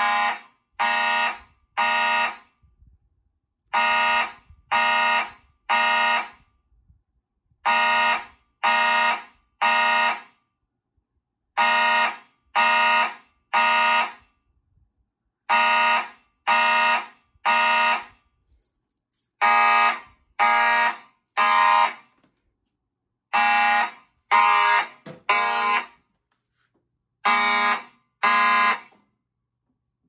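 Simplex fire alarm horns (a 2901-9838 and a 4903-9215) sounding the temporal code-3 evacuation pattern from a Potter PFC-4064 panel in alarm after a pull station is pulled. They give three short blasts, pause, and repeat every four seconds. Near the end they cut off after two blasts of a group.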